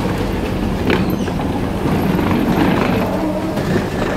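Hard-shell rolling suitcase wheels rattling and clicking over the escalator landing and the station floor, over the steady background noise of a busy railway station.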